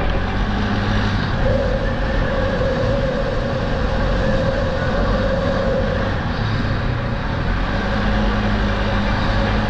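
Polaris Sportsman ATV riding along a gravel forest track: a steady engine drone over tyre and gravel noise. A higher steady whine sets in about a second and a half in and fades after about six seconds.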